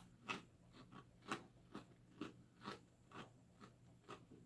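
A person chewing crunchy baked Parmesan cheese crisps, with faint, regular crunches about twice a second.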